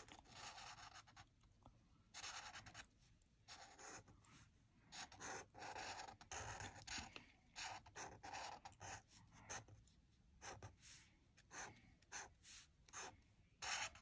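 Fine-point Sharpie marker drawing on sketchbook paper: a faint, irregular run of short strokes, some drawn out and some quick dabs.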